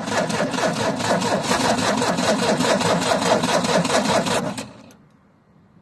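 UAZ Simbir engine cranking on the starter in quick, even pulses without firing up. It stops abruptly near the end.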